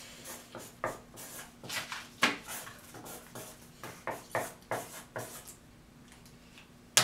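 A run of irregular light taps and knocks mixed with some rubbing, roughly two or three a second, ending in one sharper click.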